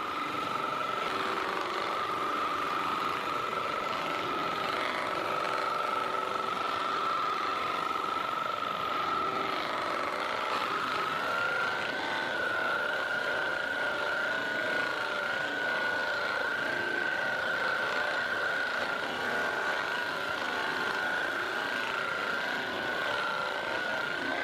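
A handheld electric percussion massager runs steadily, its motor whine stepping up slightly in pitch about halfway through.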